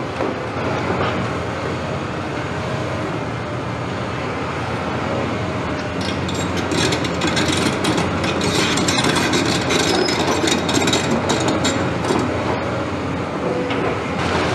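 CAT 329E hydraulic excavator's diesel engine running steadily during demolition work. From about six seconds in to about twelve seconds, a dense run of cracks and clatters of broken brick and masonry rises over it.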